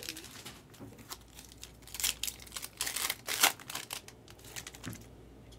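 Wrapper of a 2019 Topps Chrome Sapphire baseball card pack crinkling as hands tear it open, with a run of sharp crackles about two to three and a half seconds in.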